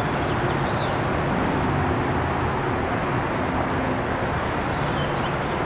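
Steady city traffic noise, with a low engine hum under it.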